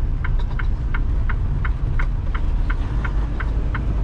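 Turn signal ticking about three times a second inside the cab of a 2021 Freightliner Cascadia, over the steady low rumble of the truck's diesel engine as it turns in at low speed.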